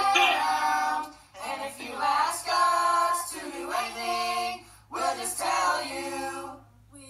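A family of several adults and children singing together, in held phrases with short breaks between them. A faint steady low hum runs underneath.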